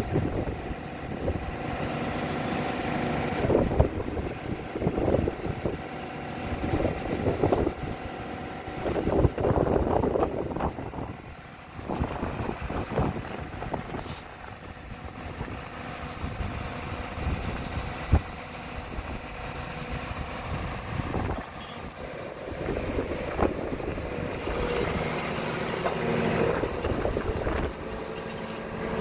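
Hutte HBR 203 D drill rig's power-pack engine running, its level swelling and dipping as the rig's hydraulics are worked by remote control. There is one sharp knock about eighteen seconds in.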